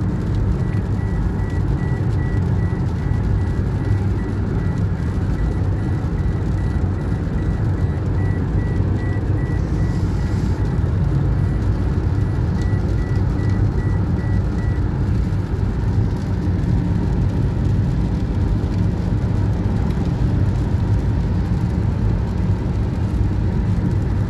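Steady low rumble of a car running, heard from inside its cabin.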